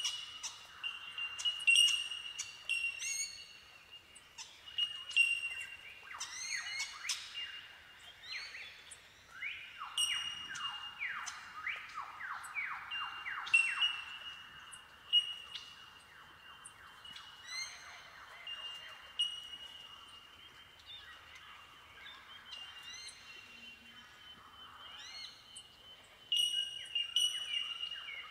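A chorus of Bell Miners (bellbirds) giving incessant ringing, bell-like 'tink' calls, many birds overlapping into a windchime-like sound. Around the middle, a quick run of falling notes joins in.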